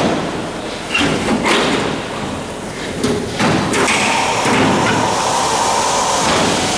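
Loose aluminium wing skin panel being pulled and flexed by hand, giving a handful of sharp thumps and sheet-metal rattles. From about four seconds in a steady hiss with a faint hum joins.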